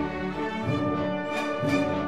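Orchestral background music, with held notes and a rhythmic pulse.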